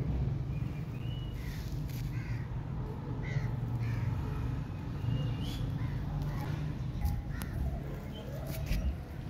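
A series of short, harsh animal calls, several spread a second or so apart, with a few brief hissy noise bursts, over a steady low rumble.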